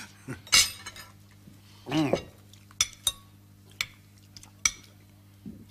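Cutlery knocking and clinking against china bowls and plates during a meal: a handful of separate sharp clicks, the loudest about half a second in, over a low steady hum.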